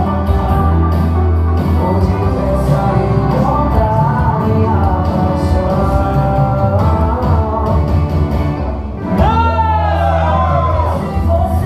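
Sertanejo song playing: singing over a steady bass line, with long gliding sung notes about nine seconds in.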